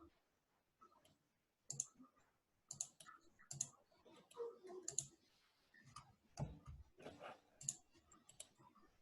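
Faint, irregular computer mouse clicks, a dozen or so scattered over several seconds with near silence between, heard over a video call.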